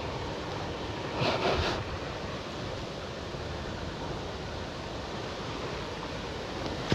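Steady wind buffeting the microphone outdoors, with a short louder whoosh of noise about a second in.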